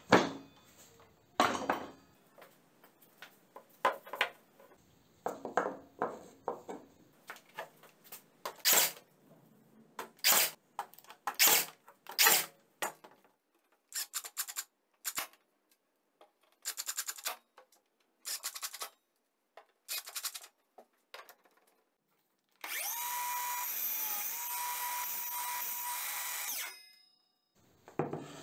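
Knocks and clatter of a circular saw and parts being handled and set down on a wooden bench, then a Greenworks cordless driver whirring in short bursts as it drives screws, followed by one steady run of about four seconds.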